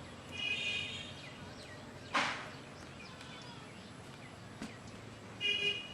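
Open-air ambience with high-pitched chirping calls near the start and again near the end, and a brief splash-like rush of noise about two seconds in.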